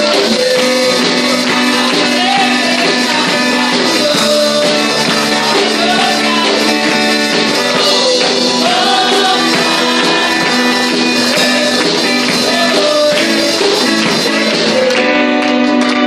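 Live band music: young girls singing into microphones over keyboard, electric guitar and drums, amplified through a PA.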